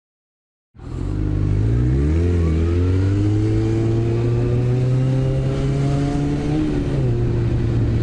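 Yamaha FZ1's inline-four motorcycle engine, heard from the rider's seat, cutting in about a second in and pulling up steadily in revs for about four seconds, then easing off near the end.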